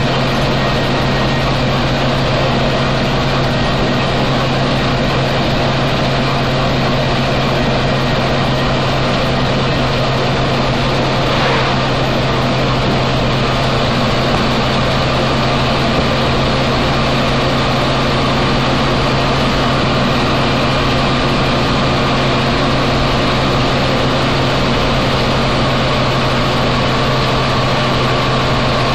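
1952 GMC XM211 truck's GMC 302 straight-six engine and drivetrain running steadily at road speed, heard from inside the cab. A faint high whine comes in a little past halfway.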